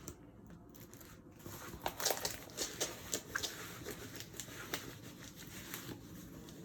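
Plastic packaging crinkling and rustling as it is handled, with a run of short, sharp crackles and light clicks starting about two seconds in.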